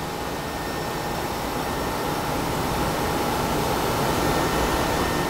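Studer CNC grinding machine grinding a hydraulic valve cage: a steady hiss of coolant spray and grinding with a faint steady whine, growing gradually louder.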